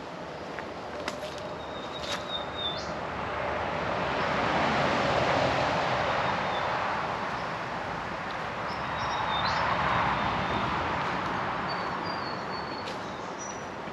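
Two vehicles passing, one after the other: tyre and road noise swells and fades, peaking about five seconds in and again about ten seconds in. Short, high bird chirps sound over it.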